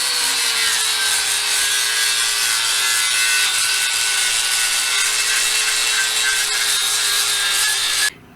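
Angle grinder grinding down the edges of a steel digging tool. It runs steadily, its motor hum sagging a little as it bears into the metal, and cuts off abruptly near the end.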